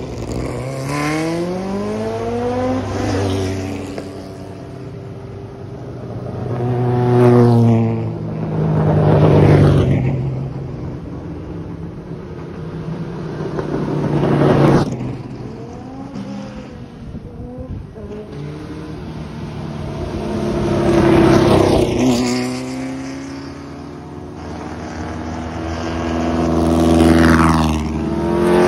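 Vintage race cars driving past one after another, about five passes. Each engine swells as the car approaches and drops in pitch as it goes by.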